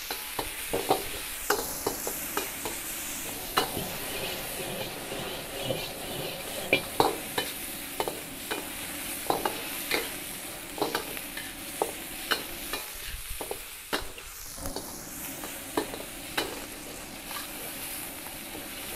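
Oil sizzling steadily in a steel wok as chicken, crushed garlic and bird's-eye chillies are stir-fried, with a metal wok spatula scraping and clacking against the pan at irregular intervals. This is the stage of sautéing the garlic until it turns fragrant.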